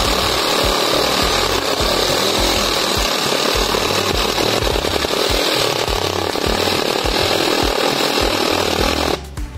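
Parkside PSSAP 20-Li B2 cordless reciprocating saw cutting through a thick wooden plank, running steadily under load, then stopping abruptly about nine seconds in.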